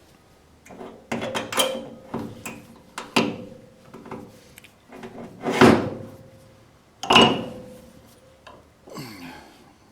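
Irregular metal knocks and clanks, about nine of them, from slide-hammer work on dent-pulling studs in a steel car body panel. Several leave a short ringing tone, and the two loudest come a little past the middle.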